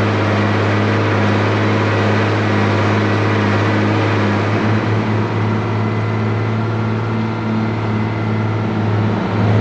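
A 1983 Mercedes Unimog U1700L's diesel engine running steadily as the truck drives on beach sand, a deep drone with tyre and wind hiss over it. The drone dips briefly about halfway and again near the end.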